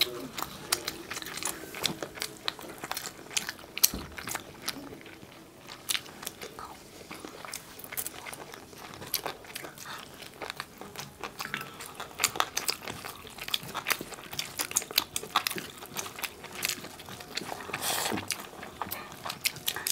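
Close-miked mukbang eating: two people biting and chewing fried chicken lollipops and curry with rice, a dense, irregular run of small wet mouth clicks and bites.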